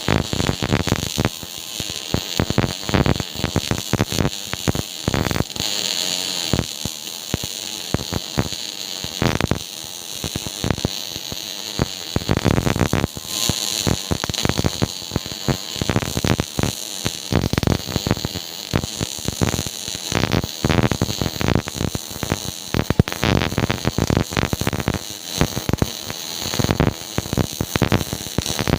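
MIG welding arc crackling steadily: a dense, irregular stream of rapid pops.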